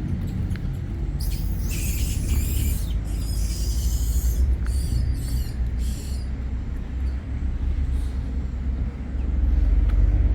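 Steady low outdoor rumble with several short hissing bursts between about one and six seconds in.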